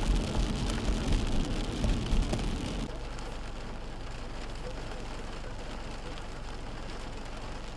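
Heavy rain falling, with a low rumble and many sharp drop impacts close by. About three seconds in it drops suddenly to a softer, steady rain hiss.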